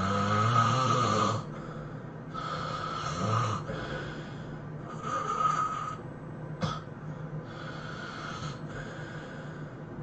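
A person snoring loudly and rhythmically, four rasping snores about two and a half seconds apart, the first the loudest and the last fainter. A short sharp click comes about two-thirds of the way through.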